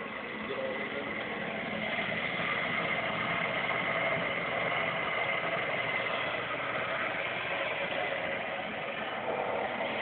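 Cutaway Pratt & Whitney R-2800 radial engine display turning over on its drive: a steady mechanical whir with a thin high whine.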